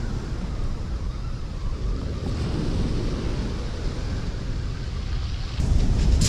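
Small waves breaking and washing up a shingle beach, with wind buffeting the microphone as a low rumble. About five and a half seconds in, the noise jumps louder.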